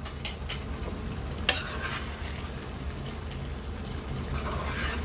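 Chicken curry sizzling in a nonstick wok as a spatula stirs through the thick masala, with a sharp click of the spatula against the pan about a second and a half in.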